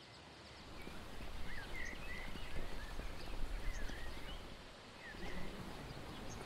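Outdoor ambience fading in over the first second: small birds chirping and twittering in short, gliding notes over a steady low background noise.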